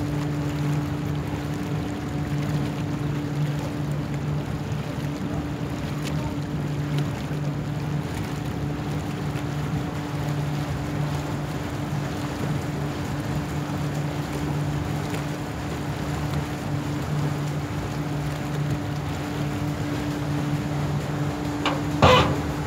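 River ferry under way: its engine runs with a steady low hum while water rushes and splashes along the hull. A short loud knock or clatter comes near the end.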